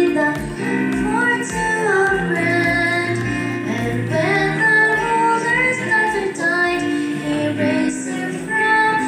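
Girls singing a song together, amplified through a microphone, over an instrumental accompaniment with a steady low beat.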